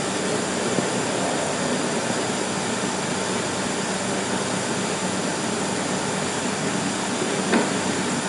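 Steady rushing noise on an old 16mm film soundtrack, with a faint short click about seven and a half seconds in.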